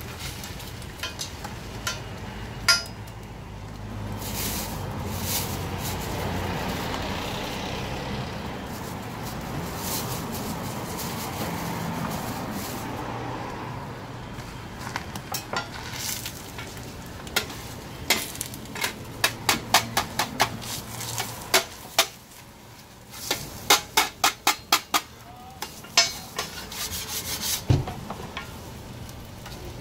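Beaten egg sizzling on a flat steel griddle, with a metal spatula scraping across the hot plate. In the second half, many sharp metal taps and clicks of the spatula on the griddle as the omelet is rolled.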